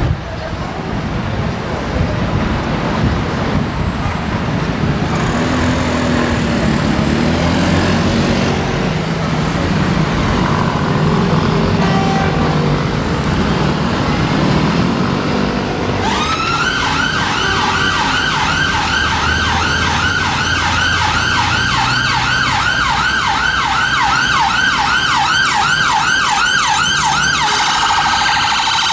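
Steady road-traffic rumble, then a little over halfway through an ambulance siren starts up: a rapid yelp sweeping up and down about three times a second. Near the end it switches to a faster warble.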